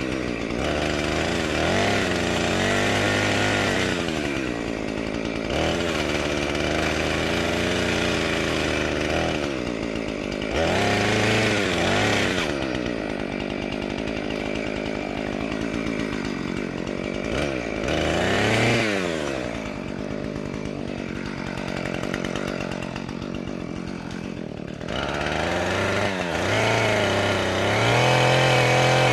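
Chainsaw running and cutting oak, its engine speeding up and slowing again several times, with lower steadier stretches between the surges.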